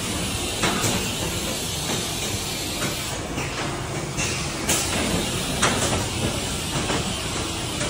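Plywood production line machinery running: a steady motor hum and hiss with irregular sharp clacks and knocks from the machines and conveyor.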